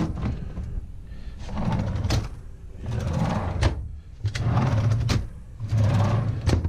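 Storage-cabinet drawers being pulled open and pushed shut: a sharp click, then several sliding scrapes, each of the first three ending in a sharp click.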